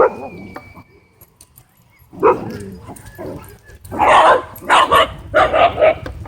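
Dogs barking during rough play: a loud bark at the start, another about two seconds in, then a quick run of barks about two a second near the end.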